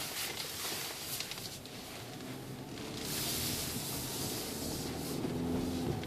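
A 2013 Hyundai Santa Fe's turbocharged 2.0-litre four-cylinder, heard from inside the cabin as the SUV drives and accelerates. The engine note rises, with a rush of road and tyre noise swelling about three seconds in.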